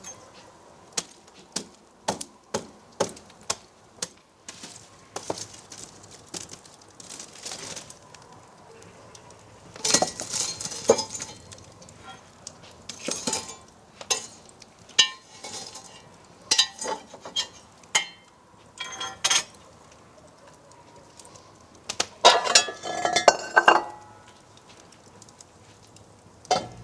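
Kitchenware handled on a worktop: a string of sharp clinks and knocks, with a couple of longer rattling scrapes about ten seconds in and again near the end.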